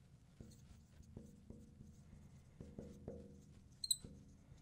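Marker writing on a glass lightboard: faint short strokes and taps, with one brief high squeak a little before the end.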